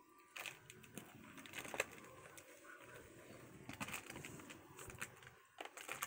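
A kitten's claws scrabbling and scratching on a carpeted cat tree, with faint scattered rustles and sharp clicks.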